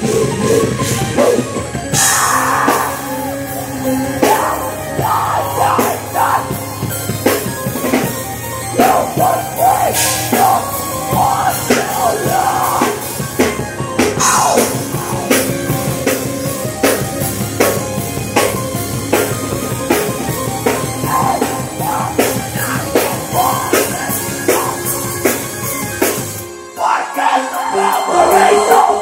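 Loud live band music with a fast drum kit and shouted vocals. Near the end the low end drops out for about a second before the full band comes back in.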